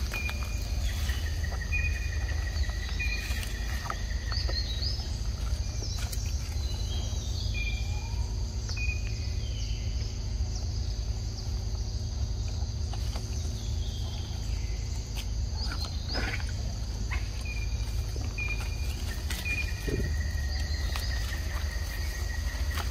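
Forest ambience: insects buzzing steadily at a high pitch, a bird repeating a short chirp about once a second with a few rising calls, over a steady low rumble. There are scattered faint clicks and rustles.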